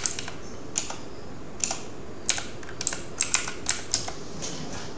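Computer keyboard typing: irregular keystrokes, some in quick clusters, with short pauses between them.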